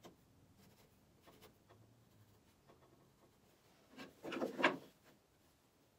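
Pencil drawing on an MDF blank: faint light scratches, then a louder run of short scratchy strokes about four seconds in, as the notch outline is traced.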